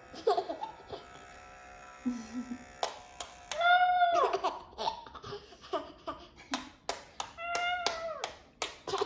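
Small dog whining during a nail trim: two drawn-out, rising-then-falling cries, about four seconds apart, with a quick run of sharp clicks in the second half.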